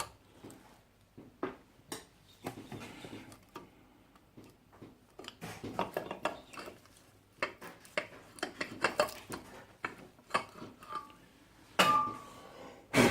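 Rocker cover being worked loose and lifted off a Kawasaki Sherpa 250's single-cylinder head: irregular metallic clinks and knocks, with a louder ringing clink near the end.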